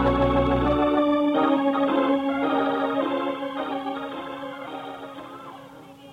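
Organ music bridge marking a scene change in a radio drama: sustained chords that shift twice in the first second or so, then fade away.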